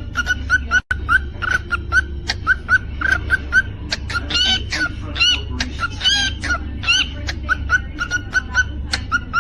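Cockatiel calling: a steady run of short chirps about three a second, with a few louder rising whistled notes in the middle, over a steady low hum.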